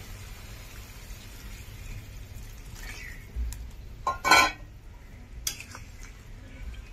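Metal spoon working in a cooking pot of curry: quiet stirring, with one brief loud scraping clank about four seconds in and a sharp click about a second later.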